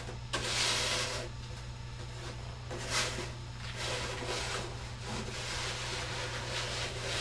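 Cardboard rubbing and scraping as it is handled and shifted on a tabletop, with a louder scrape about half a second in and another around three seconds. A steady low hum runs underneath.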